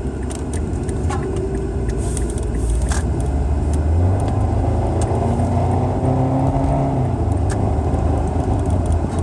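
2008 Mazda3 running, with a steady deep exhaust rumble and a faint whirring tone that slowly shifts in pitch. The owner calls the exhaust loud and cannot tell what is causing the whirring.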